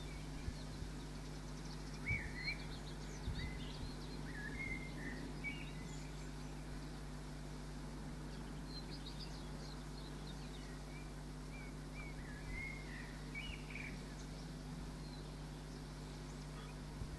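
Small songbirds calling and singing in the background, with short chirps and warbles in two spells, over a steady low hum.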